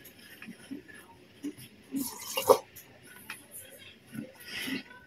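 Close-miked eating sounds: a spoon working in a plastic cup of cereal porridge, with mouth noises of eating. A louder burst comes about two seconds in, ending in a sharp click, and a shorter one near the end.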